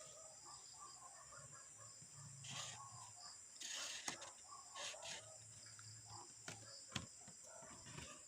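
Faint handling noises of work on a metal cable tray: a few light clicks and knocks and several short scrapes, over a steady faint high-pitched background hum.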